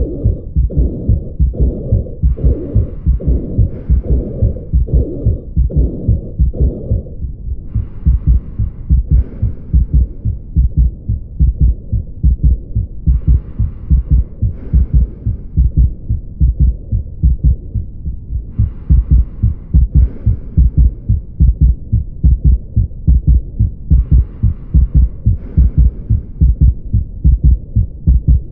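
Human heartbeat heard through a stethoscope: a fast, regular lub-dub beating throughout. A brief higher hiss comes twice over roughly every five seconds.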